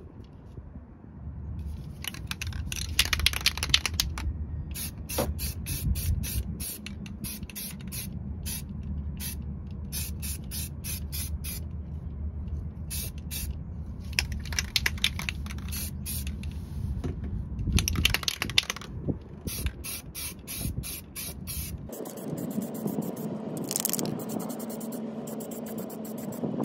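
Aerosol can of rust-treatment paint spraying onto a rusty steel car floor pan in many short, repeated bursts of hiss, over a low rumble that drops away near the end.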